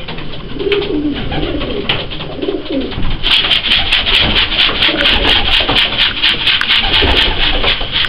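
Racing pigeons cooing for the first few seconds, then from about three seconds in a fast, continuous rustling clatter of a pigeon's wings flapping close by.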